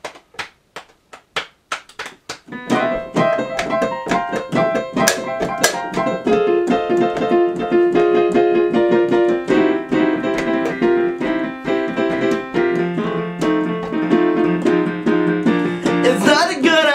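Electronic keyboard playing in a piano voice: a quick run of sharp, evenly spaced clicking beats, then chords and a melody come in about two and a half seconds in and carry on. A man's singing voice joins near the end.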